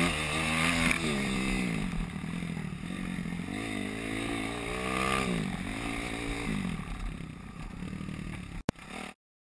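Kawasaki dirt bike engine under way on a trail, its pitch rising and falling again and again as the throttle is worked, loudest in the first second and easing off later. Near the end there is a sharp click and the sound cuts off suddenly.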